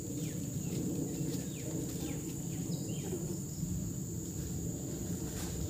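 Insects droning steadily at a high pitch over a low rumble, with a few short falling chirps in the first three seconds.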